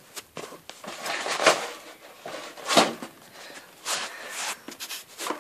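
Handling noise: a few separate knocks and rustles as objects are put down and moved close to the microphone.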